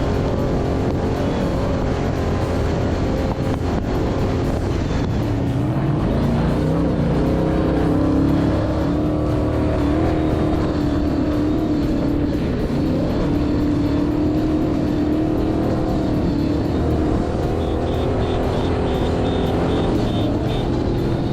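Off-road race vehicle engine running hard, its pitch climbing about five seconds in and then holding high, with music underneath.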